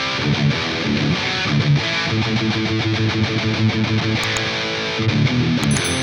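Epiphone Explorer electric guitar played through a high-gain amp-simulator plugin: a distorted, crunchy metal rhythm riff, with low notes chugged in a steady rhythm.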